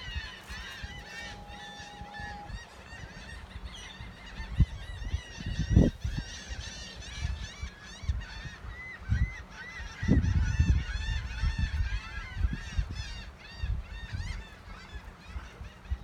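A flock of seagulls calling nonstop, many short overlapping cries. A steady tone runs for about a second and a half near the start, and low rumbles come and go, loudest about six and ten seconds in.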